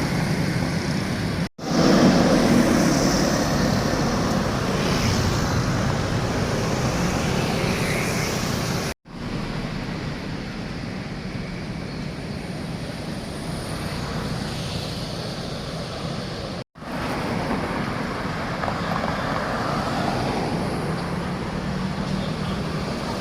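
Steady road traffic noise, with engines and tyres running continuously. It is broken three times by sudden brief drops to silence where one recording is cut to the next.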